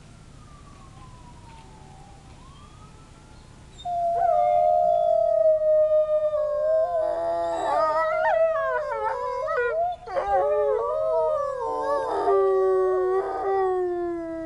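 Wolves howling. A loud howl breaks in about four seconds in on a long, steady note. From about seven seconds other wolves join in with overlapping, wavering howls, and near the end one falling howl is left trailing off.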